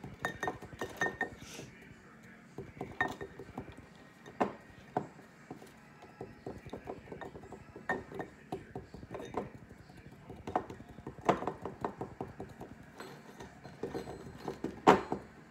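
Wine cork on a wooden skewer tamping kinetic sand down inside a drinking glass: irregular taps and clinks against the glass, the loudest knock near the end.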